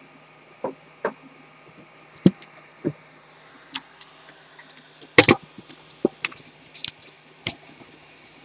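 Handling noise from a camera being picked up and turned to face a desk: irregular clicks, taps and knocks against its microphone, the loudest knock about five seconds in.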